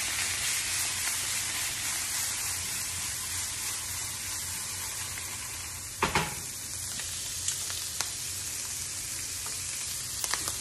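Shrimp sizzling in butter in a frying pan, a steady hiss, with a few sharp knocks against the pan, the loudest about six seconds in.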